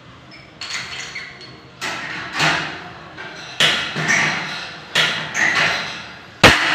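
Steel metal studs of a partition frame being worked with hand tools: a series of sharp metallic knocks and clanks, about eight, each ringing briefly. The loudest, a heavy thump, comes near the end.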